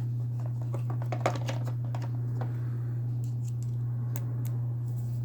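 Scattered light clicks and taps from a folding knife being handled, most of them in the first half, over a steady low electrical hum.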